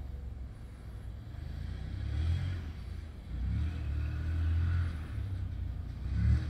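Side-by-side UTV engine heard across an open field as a low rumble that swells and eases as the vehicle drives and accelerates, loudest about two seconds in, through the middle and just before the end.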